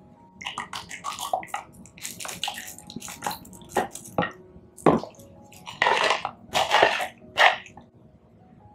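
A thick avocado and milk mixture pours and drips from a plastic bowl into plastic popsicle moulds. It comes as a series of irregular wet splashes and plops, loudest over the last few seconds.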